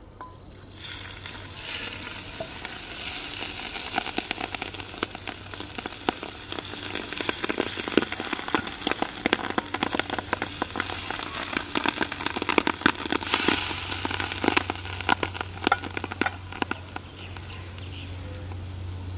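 Hot ghee poured from a pan over rice in a large aluminium cooking pot, sizzling with a dense run of sharp crackles where it hits. The sizzle starts about a second in and eases off near the end.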